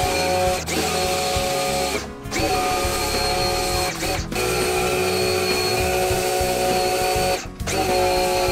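Bosch AQT 33-11 electric pressure washer running with a steady whine while spraying. It cuts out briefly three times, about half a second in, at about two seconds and at about four seconds, then again near the end.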